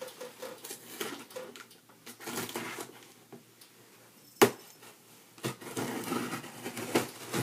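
A large cardboard box being handled and opened: scattered rustling and scraping, with one sharp knock about four and a half seconds in and busier rustling near the end.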